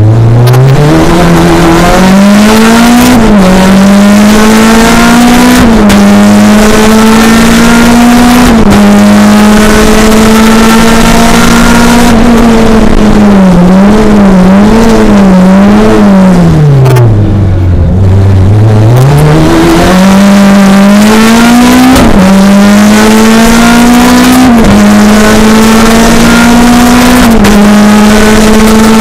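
A race car's engine being driven hard, its revs climbing through the gears with a sharp drop at each upshift, then holding high. About two-thirds of the way through the revs wobble up and down and fall away low, then climb again through three more upshifts.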